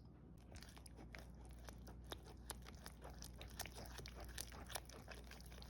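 Faint, irregular small clicks and taps of kitchen utensils and containers being handled while melted butter is added to a pie batter.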